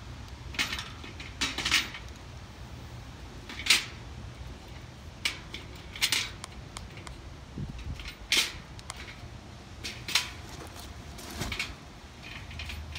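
Steel mesh garden cart parts clinking and knocking as the side panels and latch hardware are handled and fitted by hand: irregular sharp metal clicks every second or so, over a steady low rumble.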